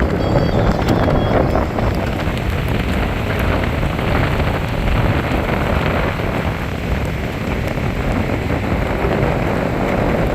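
Strong wind buffeting the microphone in a steady, rumbling rush, over the hiss of wind-driven rain.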